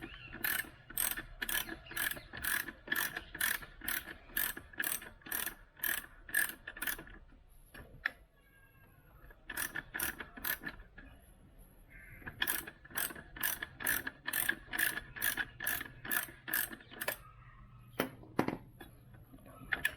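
Ratchet wrench with a 12 mm socket clicking as it is worked back and forth to loosen a motorcycle exhaust silencer's mounting nut. The clicks come evenly, about three a second, in several runs with short pauses between.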